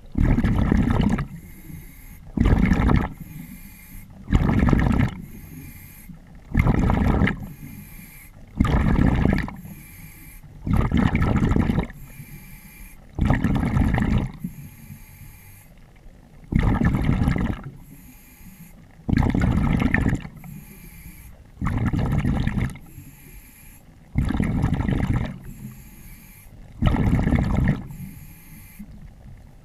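Diver breathing underwater through a regulator: a burst of breath and exhaust bubbles every two seconds or so, each about a second long, with one longer pause around the middle.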